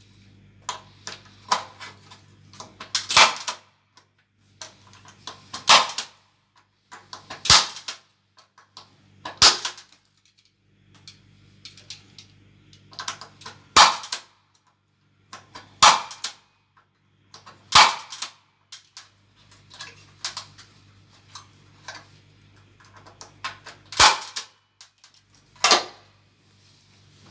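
Impact punch-down tool firing repeatedly as it seats Cat 6 wires into a patch-panel module's IDC slots: about nine sharp snaps, a couple of seconds apart, with lighter clicks in between.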